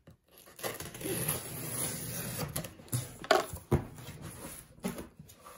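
Packing tape being peeled off a cardboard box, a long rasping rip lasting about two seconds, followed by a few sharp knocks and scrapes as the cardboard flaps are pulled open.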